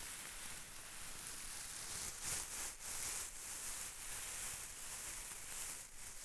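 Close-up rustling and crinkling of a handled material, a soft high-pitched hiss that swells about two to three seconds in.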